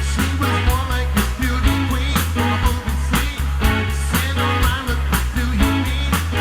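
Live band playing a song, with drums keeping a steady beat over a bass line.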